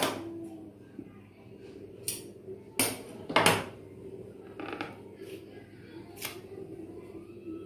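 Basting thread being pulled out of a cotton handkerchief's hem while the cloth is handled, heard as a handful of short, sharp rustles and snaps. The loudest pair comes about three to three and a half seconds in.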